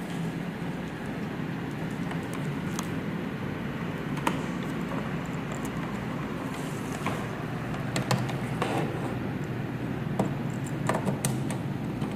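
Cables being handled and plugged in: scattered sharp clicks of plastic plugs and connectors knocking into ports, over a steady low background hum.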